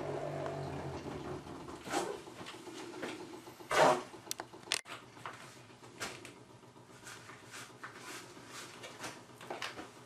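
Knocks and taps of a plastic developing tray being handled in a steel darkroom sink, with the loudest thump about four seconds in as the tray is set down, then scattered small clicks.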